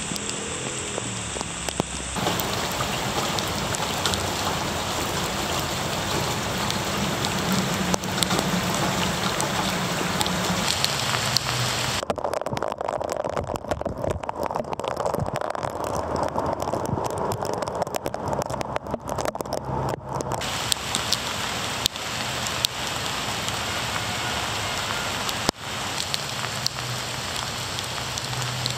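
Steady rain falling, a dense patter of drops on wet pavement, grass and leaves. For several seconds in the middle the sound turns duller, the high hiss dropping away, before the full patter returns.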